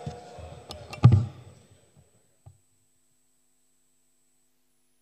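A sharp thump picked up by a desk microphone about a second in, typical of the microphone being bumped or switched on. A small click comes just before it and a faint knock follows, then the track goes silent.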